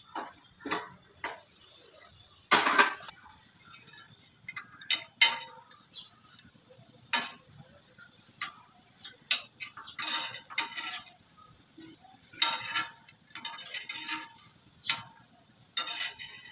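Irregular clinks, taps and scrapes of a flat metal spatula and metal tongs against an iron tawa (roti griddle) on a gas stove as a roti is pressed and turned. A louder clatter comes about two and a half seconds in, with a few more scraping runs later.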